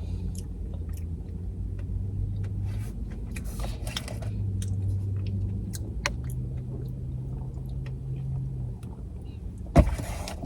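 Low steady engine rumble whose pitch steps up about six seconds in and falls back near nine seconds, with scattered light clicks and one sharp knock near the end.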